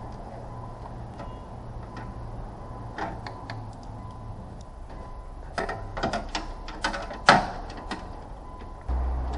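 Scattered clicks and knocks over a steady low hum. They bunch together in the second half, with the sharpest knock about seven seconds in.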